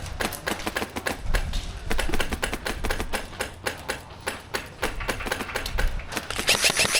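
Airsoft electric gun (AEG) firing, a run of sharp clicking shots. Near the end a faster, even stream of shots starts and keeps going.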